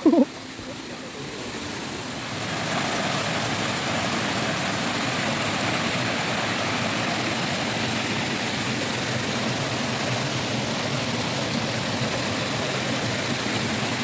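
Water of a small waterfall rushing over boulders: a steady rush that grows louder about two seconds in, then holds level.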